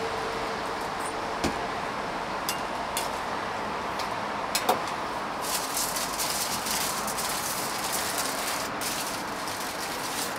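Sounds of a street toast stall at work: scattered light metal clicks and clinks, growing into a busier run of rattling and crackling about halfway through, over a steady hiss.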